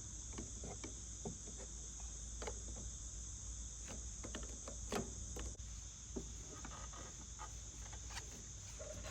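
Steady high-pitched chirring of insects, with a few scattered light clicks of an 11mm wrench loosening the negative battery-terminal bolt.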